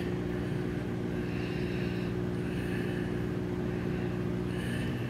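Aquarium pump running with a steady low hum.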